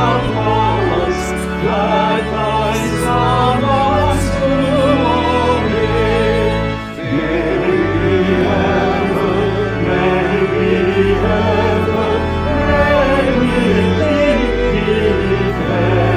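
A small mixed group of voices, two women and two men, singing a hymn in four-part harmony, with a short break between phrases about seven seconds in.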